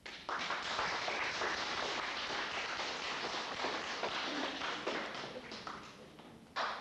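Audience applauding, the clapping thinning out after about five seconds, with one short sharp knock near the end.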